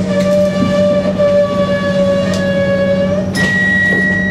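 A loud horn blast held steady for about three seconds, then cut over to a higher, thinner steady tone held for about two seconds, over the steady low hum of a moving train carriage.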